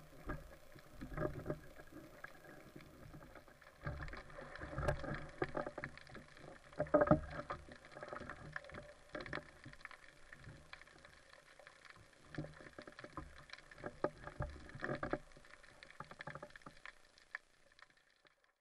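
Water sloshing and gurgling around a speargun-mounted camera just below the surface, with irregular knocks and clicks; it fades out near the end.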